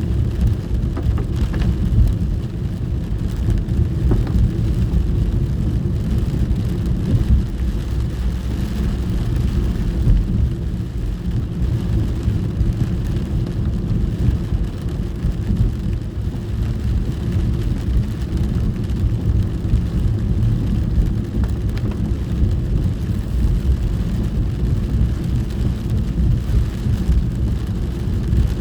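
Rain on a moving car heard from inside the cabin: a steady low rumble of the car on the road, with the fainter hiss of rain hitting the roof and windscreen above it.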